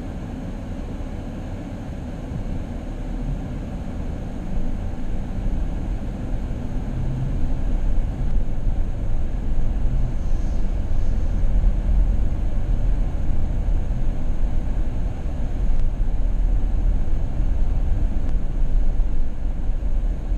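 Car on the road: a low, steady road-and-engine rumble that grows louder over the first eight seconds or so, then holds steady.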